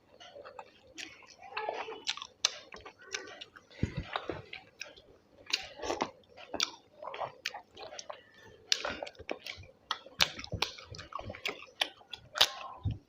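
A person chewing and biting food close to the microphone, with irregular short mouth clicks and smacks.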